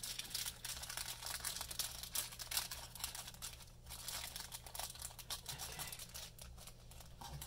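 Clear plastic sticker bag crinkling and rustling as it is handled with a pile of die-cut stickers, busiest in the first few seconds and sparser after, over a steady low hum.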